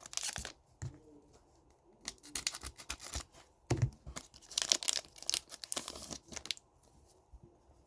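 Hockey card pack wrapper being torn open, in several short ripping bursts with crinkling of the wrapper.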